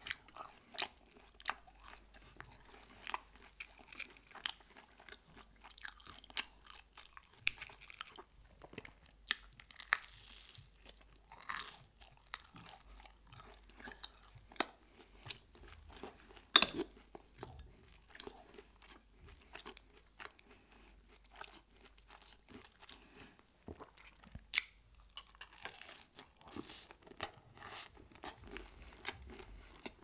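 Close-miked chewing of crispy fried food, with irregular sharp crunches; the loudest crunch comes about halfway through.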